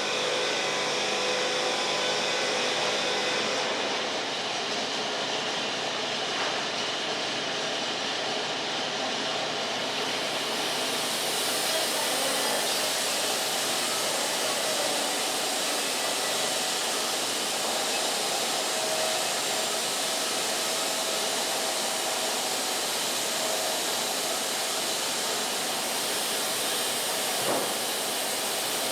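Wood-Mizer LT50 band sawmill running, a steady mechanical drone with hiss that grows brighter about eleven seconds in.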